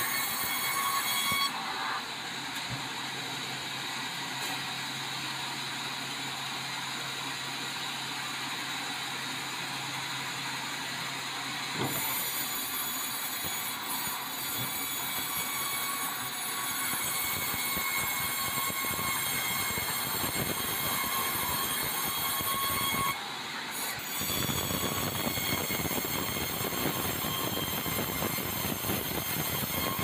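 Band sawmill cutting lengthwise through a large meranti log: a steady grinding rasp of the blade in the wood, with a high whine over it. The sound eases about a second and a half in, grows louder again near the middle and dips briefly a little after two-thirds of the way through.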